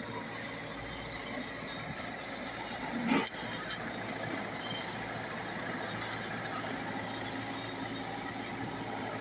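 Combine harvester running steadily, a constant machine drone, with a brief louder sound about three seconds in.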